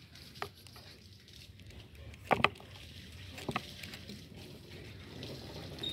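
Hand peeler stripping the skin off a green mango: a few short, sharp scrapes and clicks, the loudest a close pair about two seconds in, over a low steady rumble.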